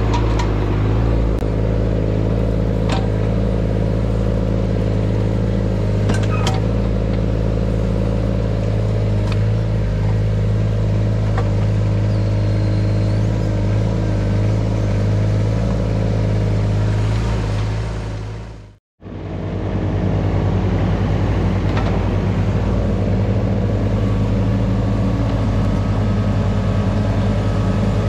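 Diesel engine of an earthmoving machine running steadily under work, with a few light knocks over it. The sound cuts out for an instant about two-thirds of the way through, then carries on.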